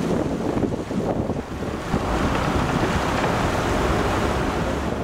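Wind buffeting the microphone aboard a moving boat, over a steady rush of water.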